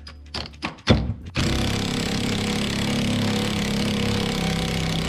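A few knocks, then from about a second and a half in an impact wrench hammers steadily on a bolt, trying to break it loose.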